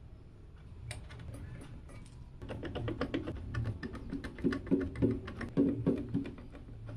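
A rapid, irregular series of hard clicks and knocks from a 1st Player CC 360 liquid cooler's pump head, its bracket and tubes being handled and set down onto the CPU mounting bracket. The clicking starts a couple of seconds in and grows loudest near the end.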